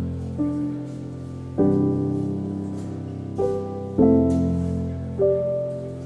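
Slow, gentle background piano music: chords struck about every two and a half seconds and left to fade, with a single note between them.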